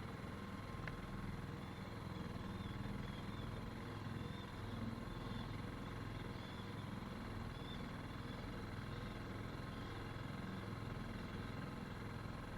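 A small boat's outboard motor running steadily at low speed, with the hiss of wind and water.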